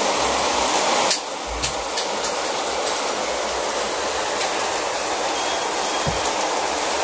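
Heavy rain pouring steadily through an open window, with a few sharp clicks about a second in.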